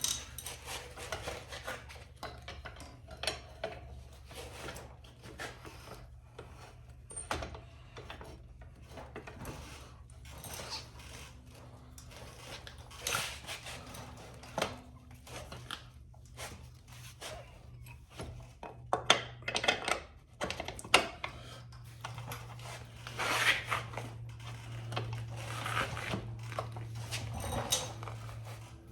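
Irregular metallic clinks, taps and knocks of tools and parts being handled during motorcycle rear wheel and sprocket work, with a few louder knocks near the middle and later on, over a steady low hum.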